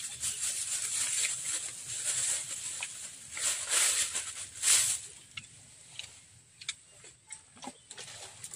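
Close rustling and crinkling of packaging being handled, loudest over the first five seconds with two sharp peaks around four and five seconds in, then dropping to scattered light clicks and crackles.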